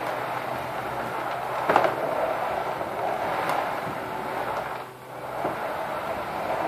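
Empty drum of a small hand-turned cement mixer rotating, a steady rolling rumble. There is a sharp clank about two seconds in, and the sound dips briefly near five seconds before picking up again.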